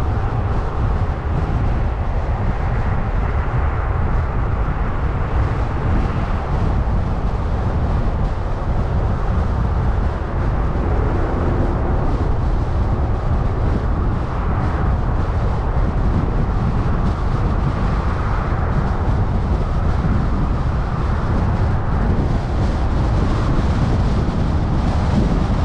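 A car driving at a steady speed, with constant road and tyre noise and a heavy low rumble.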